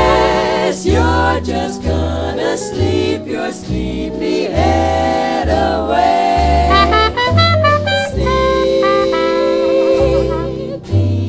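Background music in a jazz style: a singing voice and horns over a bass line that steps from note to note about twice a second.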